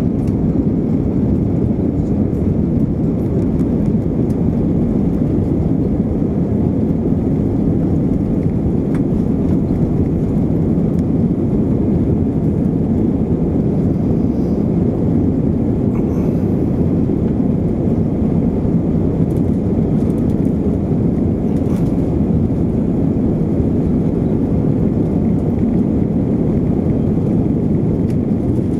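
Cabin noise inside an Airbus A320 on the runway: a steady low rumble of the jet engines and the airframe rolling, with no change in level.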